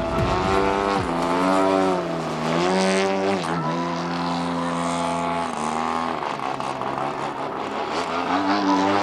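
ZDZ gasoline engine of a 39% Laser Z2300 aerobatic RC plane in flight, its pitch rising and falling with the throttle through the manoeuvres. It dips and climbs again twice in the first few seconds, holds steady for a while, drops about six seconds in, then climbs again near the end.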